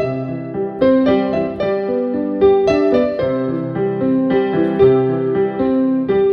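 Piano music: a gentle melody over sustained chords, notes changing about every half second to second.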